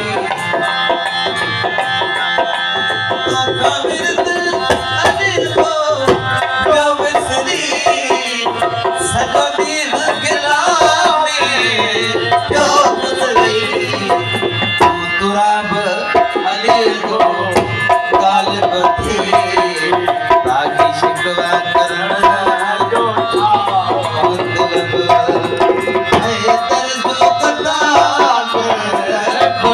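Live Sindhi qasida (devotional song) performance: a steady hand-drum rhythm under a wavering melody line that bends up and down.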